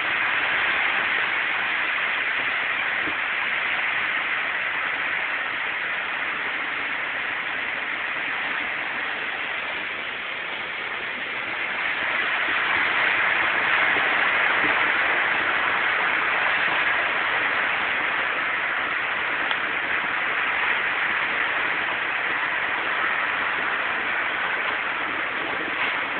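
Steady rushing hiss of floodwater, heard from inside a car, swelling for a few seconds about halfway through.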